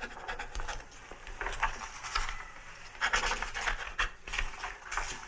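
Pen nib scratching across paper in quick, irregular strokes of handwriting and signing.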